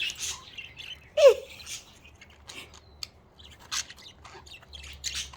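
Budgerigars squabbling over a toy: scratchy high-pitched chirps and squawks, with one loud short call falling in pitch about a second in.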